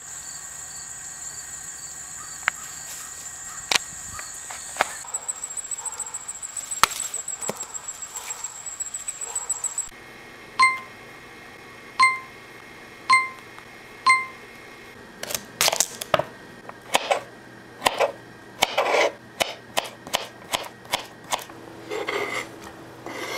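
High-pitched insects trilling steadily for the first ten seconds, then five short electronic beeps about a second apart. After that, a knife cutting through butternut squash on a cutting board gives a run of sharp knocks.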